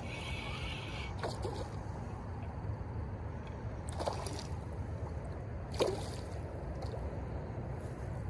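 A hooked bass splashing at the water's surface near the bank during the fight, a few short sloshing splashes about 1, 4 and 6 seconds in over a steady low background rush.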